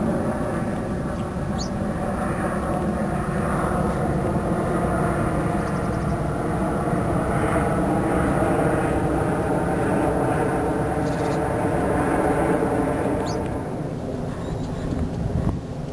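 Steady low mechanical rumble carrying faint hum lines, dropping off a little near the end. Over it come two short, faint, high sweeping calls of a chiffchaff, about two seconds in and again near the end.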